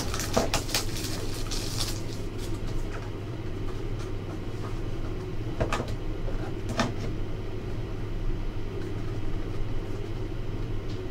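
Hands handling and opening a cardboard box of trading cards: a few sharp crinkles and clicks of the cardboard, the loudest just at the start and two more about six and seven seconds in, over a steady low hum.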